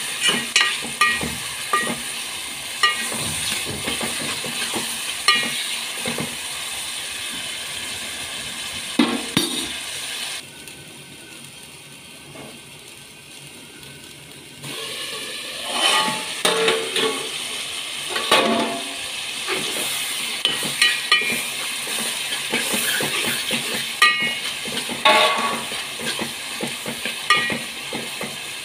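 Tomatoes and onions sizzling in oil in a metal pot while a spoon stirs them, clinking and scraping against the pot many times. The sizzle drops to a quieter hiss for about four seconds near the middle, while the pot is covered with a steel lid.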